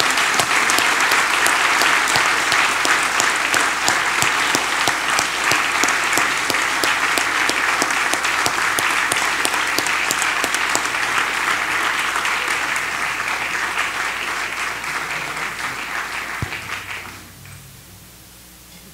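Congregation clapping in sustained applause, which dies away near the end.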